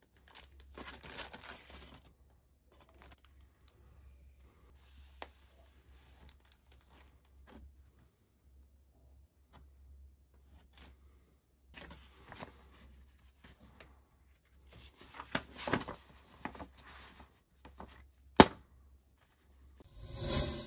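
Plastic model-kit packaging being handled as the kit is unboxed: bags and wrapping rustle and crinkle in short irregular bursts. One sharp, loud snap comes about two-thirds of the way through, and a short louder burst comes near the end.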